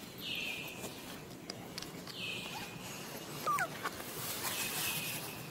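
Baby macaque giving a few short, high, falling squeals a little past the middle, distress cries while an adult holds it by the tail. Behind it a high buzz repeats about every two seconds.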